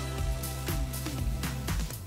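Electronic background music with a bass line and repeated drum hits.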